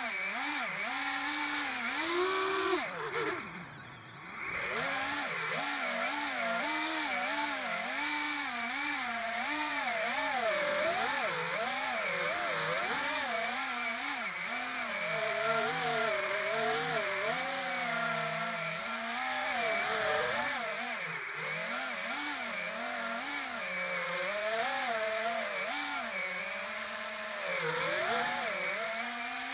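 FPV quadcopter's brushless motors and propellers buzzing close to the onboard camera, the pitch constantly rising and falling with the throttle. The sound drops away briefly about four seconds in, then climbs again.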